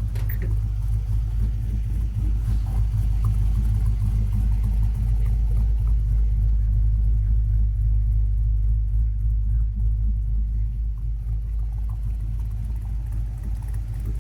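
Chevrolet LS 5.3 Vortec fuel-injected V8 with mild cam idling steadily through a stainless steel dual exhaust, a low, even rumble.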